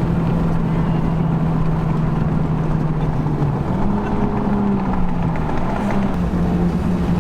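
Honda Civic Type R's turbocharged 2.0-litre four-cylinder engine, fitted with a PRL high-flow intake, running at a steady cruise with road noise. Engine speed rises briefly about three and a half seconds in, then settles back.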